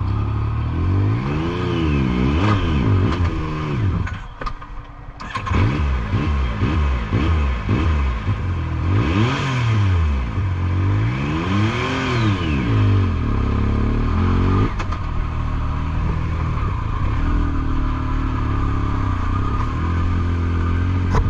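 2016 Yamaha YXZ1000R's three-cylinder engine revving up and down again and again, each rise and fall lasting a second or two. It drops away briefly about four seconds in, comes back sharply, and settles to a steadier run near the end.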